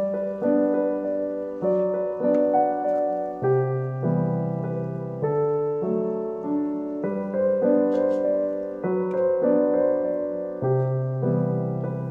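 Background piano music: a gentle melody over chords, the notes struck and fading, changing every second or so.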